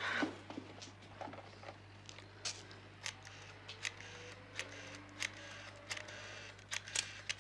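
Telephone keypad buttons clicking as a number is dialled, a row of short clicks spaced about half a second to a second apart, over a low steady hum.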